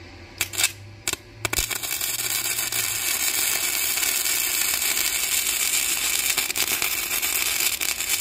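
HITBOX HBM200 flux-core wire welder arc: two brief stuttering strikes in the first second or so, then the arc catches and crackles steadily as a bead is run.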